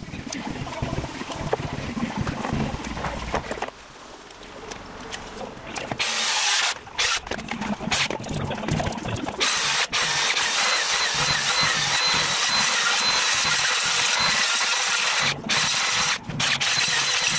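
Cordless circular saw cutting into a timber beam, starting about six seconds in. It runs in several passes that start and stop, with one long steady cut of about six seconds in the middle, cutting out a checkout notch in the beam.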